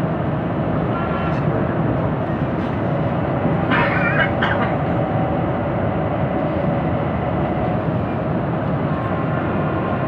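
Steady running noise of a commuter train on the Mitre line's Tigre branch, heard from inside a moving carriage. About four seconds in, a brief higher-pitched sound rises over it.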